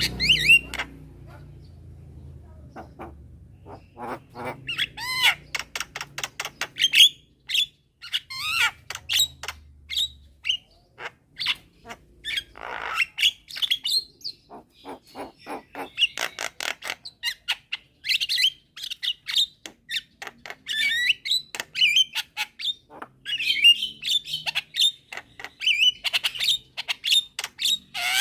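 Javan mynas calling and chattering: a quick, varied series of sharp clicks, whistled notes and harsh squawks, thickening into dense chatter in the second half.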